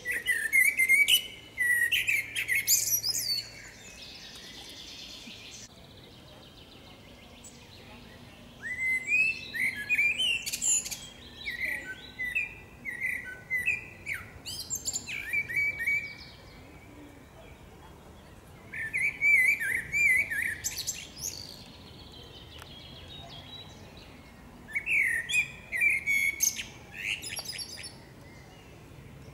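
Eurasian blackbird singing four phrases, separated by pauses of a few seconds. Each phrase has warbling, fluty notes, mixed with high, squeaky twittering.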